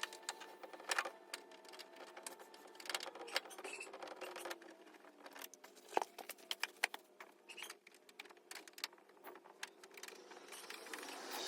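Faint, scattered clicks and light knocks of hand work on a car's plastic bumper trim and clips, with one sharper knock about six seconds in.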